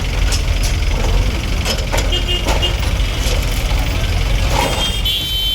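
Heavy diesel machinery running with a steady low rumble amid street noise, with scattered knocks and clatter. A short high-pitched beeping tone sounds about two seconds in and again near the end.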